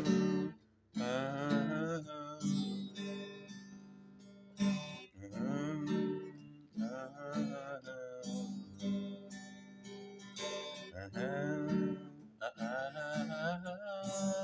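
Music: acoustic guitar strumming, with a wavering melody line over it.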